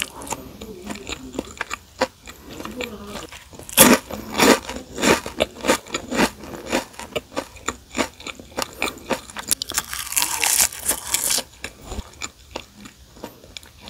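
Person chewing, then crunching crisp fried seaweed chips (gim bugak): a dense run of sharp crunches starts about four seconds in and dies away a couple of seconds before the end, with softer chewing before and after.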